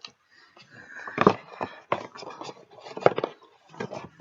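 Packaging being handled during an unboxing: irregular rustling and scraping with a few sharp knocks, the loudest about a second in and again about three seconds in.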